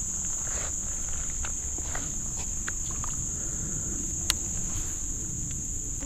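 Steady high-pitched buzz of insects in the creekside trees, over a low rumble, with a few faint clicks, one sharper about four seconds in.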